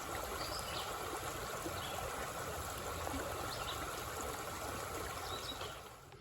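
Steady rushing noise of running water, like a stream, with a few faint high chirps over it.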